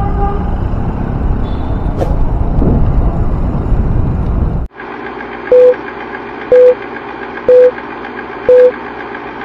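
Wind rumble and road noise on the microphone of a moving bicycle, cut off abruptly about halfway through by a film-countdown sound effect: a steady whirr with a loud short beep about once a second.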